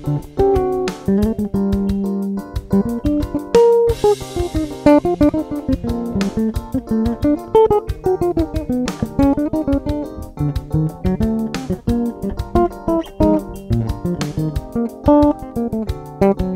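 Six-string electric bass played fingerstyle in a busy melodic passage of quick runs and chords, with a sharp percussive hit every two to three seconds.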